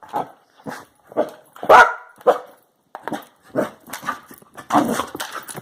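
Dog barking in play at a toy RC car: a string of short barks, about two a second, the loudest just before the two-second mark, then after a brief pause a quicker run of barks toward the end.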